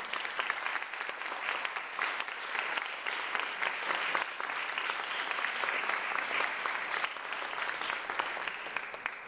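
Audience applauding, a dense steady patter of clapping that eases off near the end.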